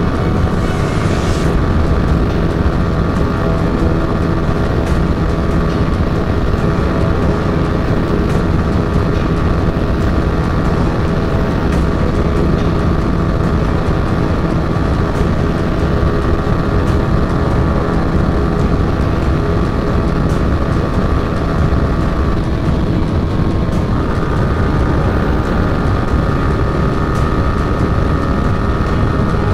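Yamaha R15 V3's 155 cc single-cylinder engine held at high revs in sixth gear near top speed, around 135–139 km/h, as a loud, steady drone. About three-quarters of the way through, the pitch dips briefly, then settles a little higher.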